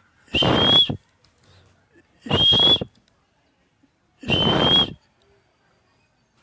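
Parrot giving three short, hissy whistle calls about two seconds apart, each with a high thin whistle on top.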